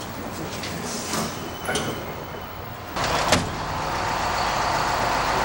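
A few light knocks at first. About three seconds in, the steady noise of a rescue ambulance's engine running starts abruptly, with a sharp clack at the rear doors just after.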